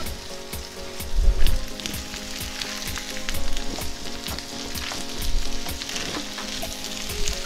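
Rice, black bean, onion and meatless-ground filling sizzling in a hot frying pan while a utensil stirs it, with a steady hiss and many short scrapes and taps of the utensil against the pan. The stirring swells louder a few times, about a second in, midway and near the end.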